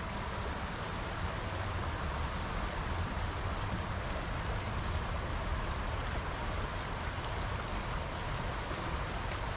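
Shallow creek water running over stones, a steady rushing noise.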